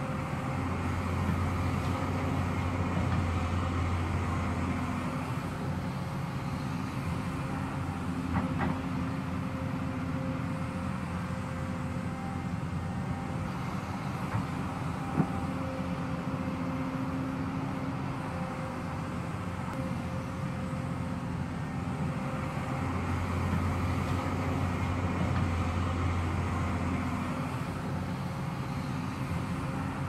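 Hyundai crawler excavator's diesel engine running steadily while it digs and scrapes soil with its bucket. The engine loads up and grows louder in two spells, near the start and again about three quarters through, with a couple of sharp clanks, one about halfway through.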